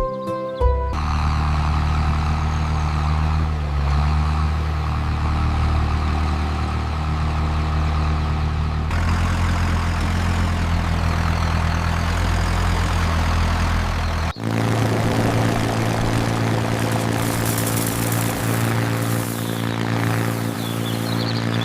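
Tractor engine sound effect running steadily. Its note shifts about nine seconds in, and it breaks off for an instant about fourteen seconds in.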